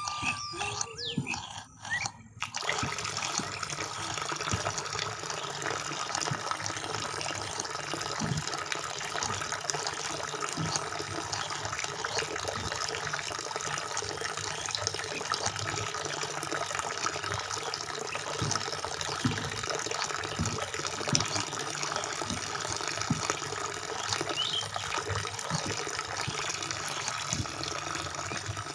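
Thin stream of water pouring steadily from a miniature hand pump's spout into a small basin and trickling over into a tank, with scattered small splashing ticks. The water starts about two seconds in.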